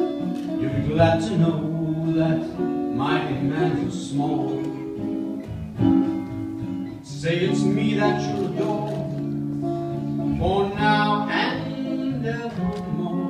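Acoustic guitar played live, strummed and picked, with a man singing along in a slow song.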